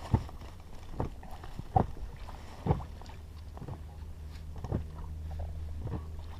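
Knocks and taps in a small dinghy, roughly one a second, over a low steady rumble.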